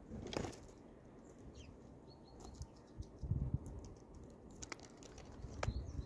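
Small birds feeding at a grain-filled feeder tray close to the microphone: sharp pecking taps and scrabbling on the tray, low thuds of wingbeats and landings about three seconds in, and a few short high chirps.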